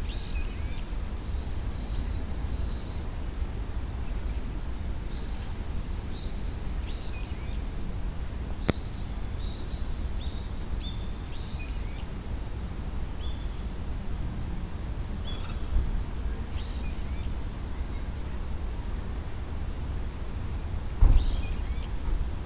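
Outdoor ambience: birds chirping in short, scattered calls over a steady low rumble, with one sharp click about nine seconds in and a dull thump near the end.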